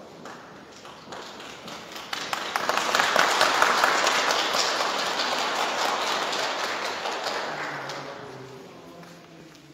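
Audience applauding: the clapping swells to a peak and then dies away. As it fades, a faint steady low note is held near the end.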